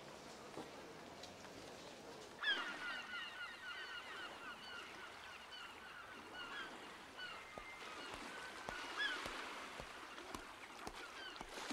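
Seagulls calling: a rapid run of short cries starting about two seconds in and thinning out near the end, over a faint background hiss.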